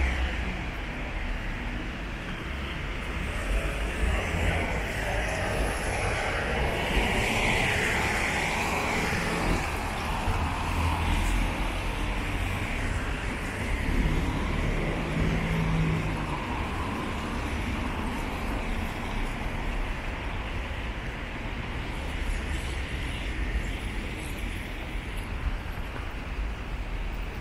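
Town-centre road traffic on a wet road: cars and vans passing with tyre hiss, one passing louder about seven seconds in.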